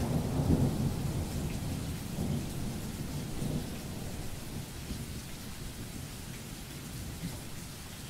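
A low rumbling noise with a faint hiss above it, slowly fading away.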